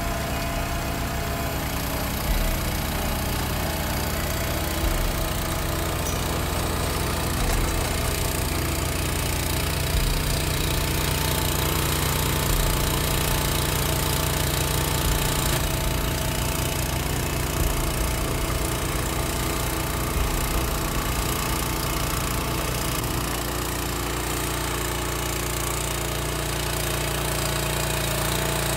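Small engine of a Resch walk-behind chain trencher running steadily while its digging chain cuts a trench through soil.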